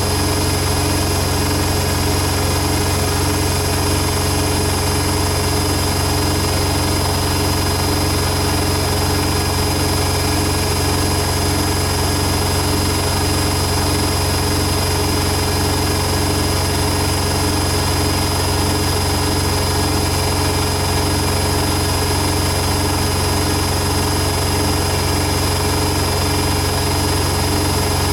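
Hoover Nextra HNL71463D washing machine in its final spin at a steady top speed of 1400 rpm: the drum and motor run with a constant hum and a steady high whine.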